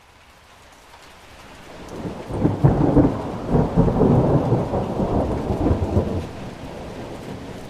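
A long roll of thunder that builds over a couple of seconds, peaks, and slowly fades, over the steady hiss of heavy rain.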